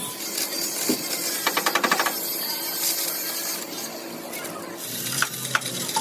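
Metal hand tools clinking during street car repair work, with a short quick run of rapid clicks about a second and a half in and a few single knocks.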